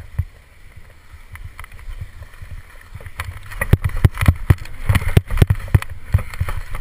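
Skis scraping and clattering over hard snow on a steep descent, with irregular sharp knocks that come thick and loud from about three seconds in.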